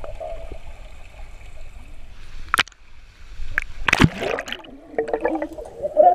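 Pool water heard underwater through a submerged action camera: muffled gurgling and bubbling, with two sharp clicks about two and a half and four seconds in.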